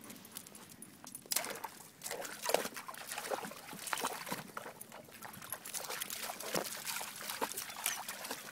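A dog's paws splashing as it wades through shallow water with a thin film of ice on it, a run of irregular sharp splashes starting about a second in.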